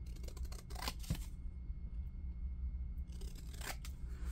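Scissors snipping through thin cardstock, with a few short cuts in about the first second, then another brief click near the end.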